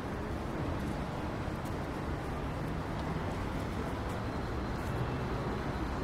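Steady low rumble of motor traffic, with an engine hum rising and falling in the background.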